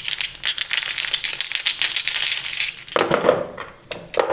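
Small plastic paint jars rattling and clacking together as they are shaken in cupped hands, a fast run of light clicks. Near the end come a couple of louder knocks as the jars are set down on paper.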